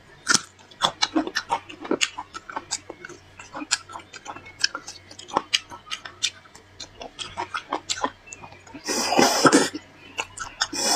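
Close-miked eating sounds from braised beef marrow bones: quick wet smacks and clicks of chewing and lips. About nine seconds in comes a loud slurp, lasting about a second, as marrow is sucked from the end of a bone.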